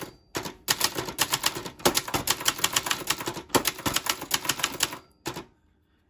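Brother Charger 11 manual portable typewriter being typed on: a rapid clatter of keystrokes and type bars striking, with a few short breaks between words, stopping near the end. It has a tinny, very metallic sound.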